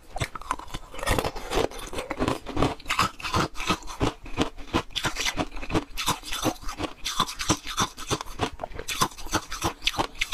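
Close-miked chewing of frozen milk-tea ice: a quick, irregular run of crisp cracks and crunches as the ice is bitten and ground between the teeth.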